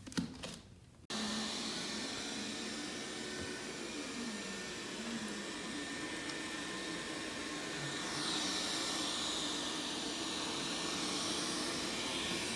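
ZOOZEE Z70 robot vacuum's suction blower running with a steady whoosh and a faint thin whistle. It starts abruptly about a second in and turns a little brighter about eight seconds in.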